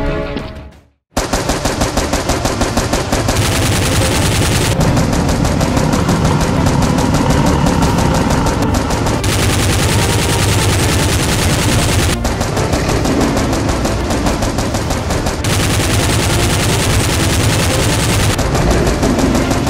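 Continuous rapid automatic gunfire sound effect, fast shots packed close together. It begins about a second in after a brief gap of silence, and it sharpens in the high end three times for a few seconds each.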